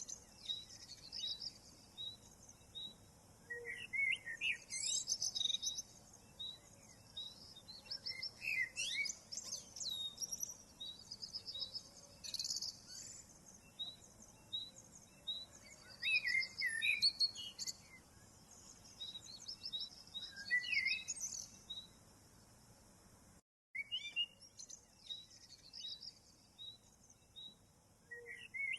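Several songbirds singing and calling: rows of short high chirps repeated over and over, with longer warbling phrases now and then. The sound cuts out completely for a moment about 23 seconds in.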